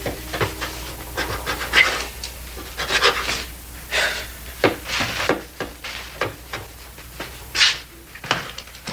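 A long knife sawing back and forth through a crusty round loaf of bread on a wooden board, a string of irregular short strokes.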